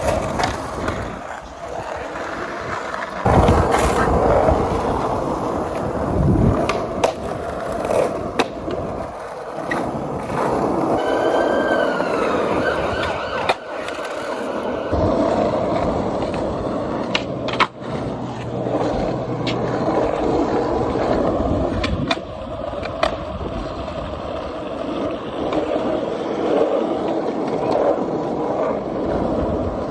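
Skateboard wheels rolling continuously on pavement, broken by several sharp clacks of the board striking the ground, the loudest about three seconds in.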